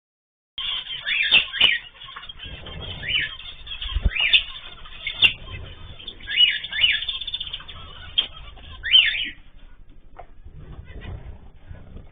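Mixed cage birds chirping and calling in short, quick notes, with a few sharp clicks among them. The sound starts about half a second in.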